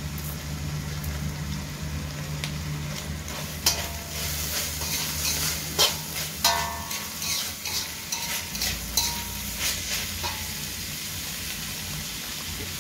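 Minced chicken with onion and curry leaves sizzling in oil in a stainless-steel kadai, stirred with a metal spatula. From about four to ten seconds in, the spatula scrapes and clinks against the pan, with a few short metallic rings, over a steady low hum.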